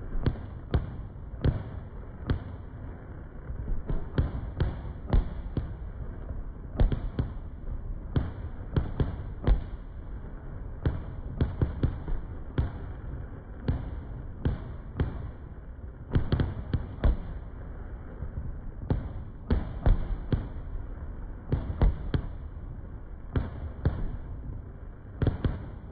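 Fireworks shells bursting in an aerial display: a long run of deep, dull booms and thuds at irregular intervals, often one or two a second.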